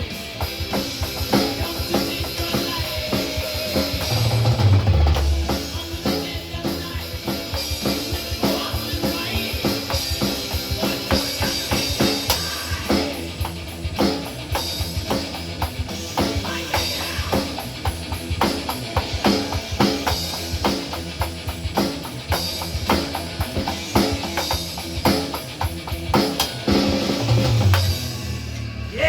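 Rock song played loud, with a drum kit pounding out a steady beat of bass drum and snare hits over sustained bass and guitar notes.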